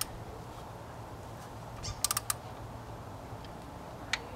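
Torque wrench ratcheting on the Vanos solenoid's mounting bolt as it is tightened to 75 inch-pounds. There is a quick run of about four clicks about two seconds in and a single click near the end.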